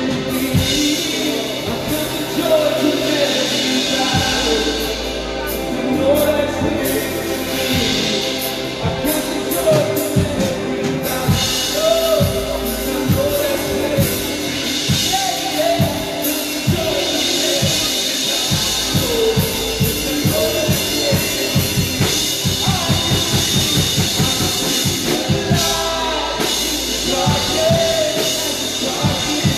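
Live worship band: several voices singing into microphones over acoustic guitars and a drum kit. About halfway through, the drums settle into a fast, steady beat.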